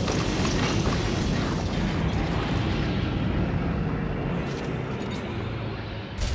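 Cartoon sound effect of a long rumbling explosion as a lightning-charged rock shell bursts apart. The hiss fades after about two seconds while the deep rumble carries on, with a couple of short crackles near the end.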